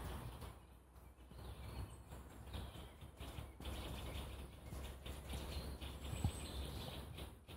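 Quiet forest ambience: faint, scattered bird chirps over a soft background hush, with a single soft footstep on the forest floor about six seconds in.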